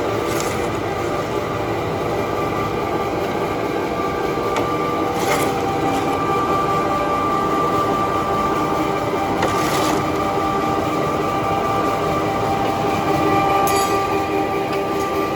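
A screw-press briquette machine running steadily: a loud mechanical drone with a held high whine, broken a few times by short hissing bursts.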